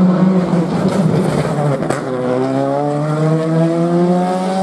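Rally car engine running hard, with a sharp crack about two seconds in. After the crack the engine note climbs steadily as the car accelerates away.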